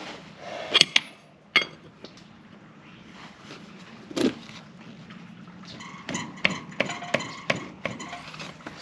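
Metal spanner clinking and knocking on a tractor's front wheel hub nut: a few sharp clicks early, a duller knock about four seconds in, then a quick run of short ringing clinks near the end.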